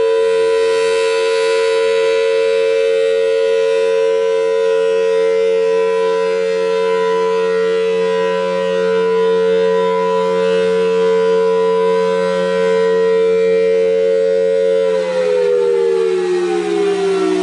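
Federal Signal Thunderbolt 1000T outdoor warning siren sounding a steady, loud tone at full speed. About 15 seconds in, the pitch begins falling as the siren winds down.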